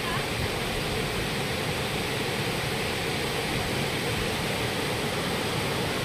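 Waterfall in forceful flow: a steady, even rush of falling water.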